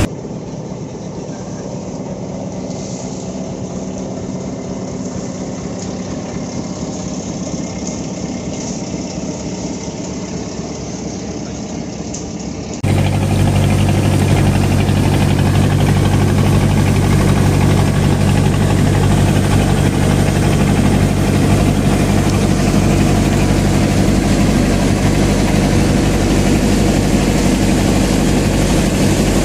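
A boat's motor running steadily with a low, even hum. It is quieter and duller at first, then abruptly louder and fuller from about 13 seconds in.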